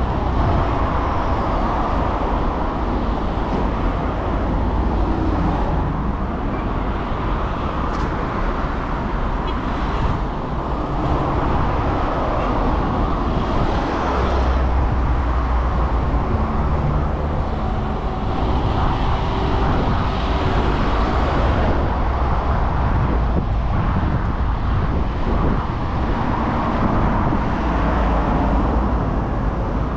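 Steady city road traffic: the continuous noise of cars and other vehicles running and passing close by.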